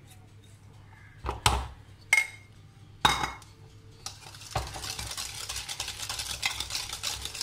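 Three sharp clinks on china, then a wire whisk beating butter, sugar and egg yolk in a ceramic bowl: a fast, steady scraping from about four seconds in, as the mixture is creamed.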